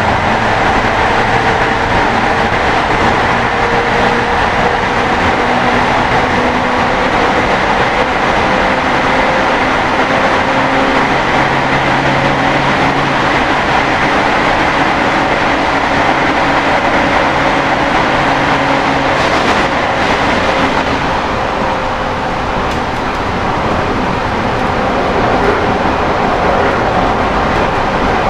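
Toei 10-300 series commuter train running at speed, heard from inside the car: wheel and track noise with the steady hum of its Mitsubishi two-level IGBT-VVVF inverter and TIM-10 traction motors. The motor tones fade out about two-thirds of the way in, leaving the running noise of the wheels on the rails.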